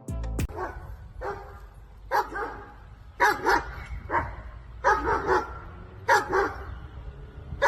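A dog barking repeatedly, about ten barks in short runs, some in quick pairs.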